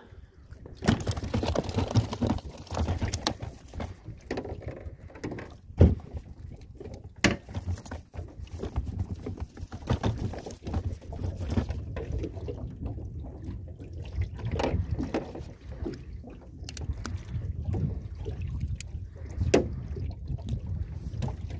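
Small waves lapping against the side of an aluminium boat, with wind rumbling on the microphone and a few sharp knocks now and then.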